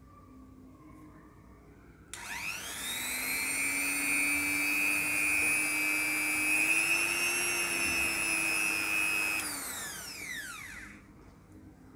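Small handheld electric rotary tool (mini grinder) switched on about two seconds in: its motor spins up with a rising whine and runs free at a steady high whine. About seven seconds later it is switched off and winds down, the whine falling in pitch as it stops.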